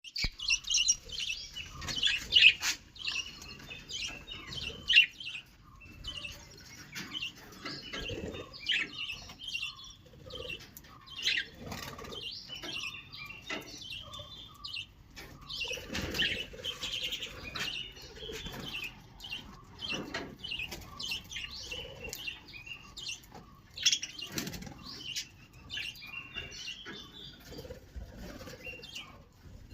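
Small birds chirping continually, with short bouts of wing flapping every few seconds.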